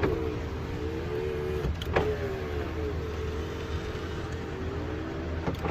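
Power window motor in a 1995 Ford pickup's door, newly replaced, whining as it drives the glass, stopping with a click about two seconds in, then running again until another click near the end. The motor runs smoothly without sticking, the regulator freshly greased and cleaned.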